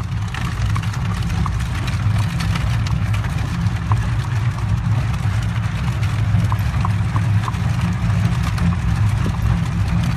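Horse-drawn Amish buggy rolling along the road: a steady low rumble from the wheels, with faint short ticks of the horse's hoofbeats.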